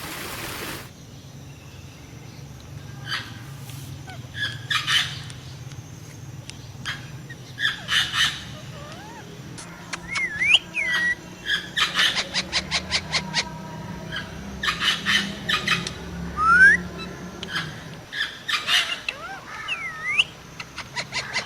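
Parrots calling: sharp chirps and clicks, some in quick runs, mixed with short whistles that glide up and down in pitch.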